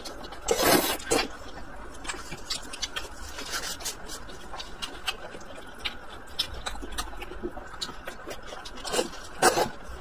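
Close-miked eating: a long stalk of stir-fried rapeseed greens slurped into the mouth, with loud sucking about half a second and a second in, then steady wet chewing with small clicks, and two more loud mouth noises near the end.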